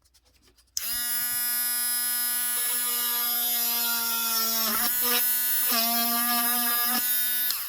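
Small battery mini rotary tool (Affanti) with a drill bit, spinning up about a second in and running with a steady high whine. Its pitch dips briefly a few times in the middle as the bit is pushed into a cardboard tube, and it winds down just before the end.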